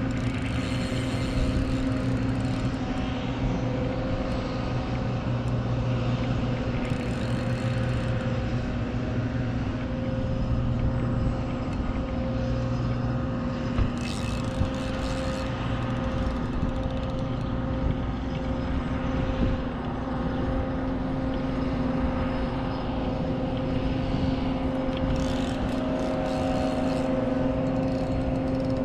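A steady engine drone at an even pitch, with a few brief scratchy noises about halfway through and again near the end.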